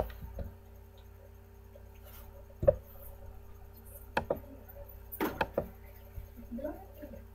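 Sharp clicks of a computer mouse and keyboard, irregularly spaced, with several close together about four to five and a half seconds in, over a steady electrical hum.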